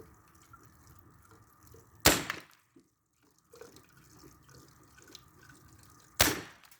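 Two shots from an AEA Terminator .357 semi-automatic PCP big-bore air rifle firing 93-grain hollow-point slugs, about four seconds apart. Each is a sharp crack with a brief tail. Between the shots, water drips and trickles faintly from the bullet-holed milk jug.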